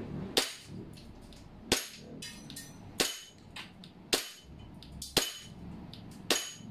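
WE Glock 17 Gen 4 gas blowback airsoft pistol firing six slow, evenly spaced shots, about one a second, each a sharp crack as the slide cycles. Each shot is followed by a ping from the BB striking a hanging plate target.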